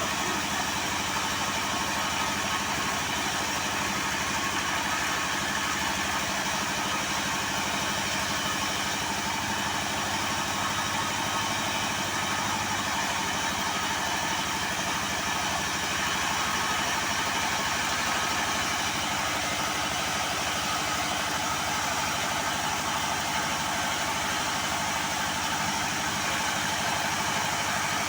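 A motor-driven machine running steadily at an even speed, with a fast pulsing hum and no change in load.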